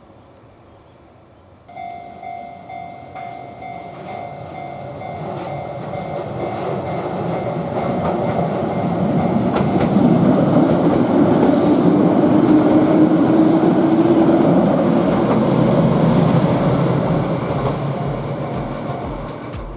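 A level crossing warning bell starts ringing about two seconds in and keeps ringing until near the end, while a Keihan Ishiyama-Sakamoto Line train comes up, passes over the crossing and moves off. The train's running noise swells to its loudest in the middle, with a rising whine, and then fades.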